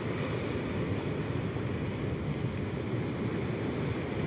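Steady rush of sea surf breaking and washing over a rocky reef, with wind on the microphone.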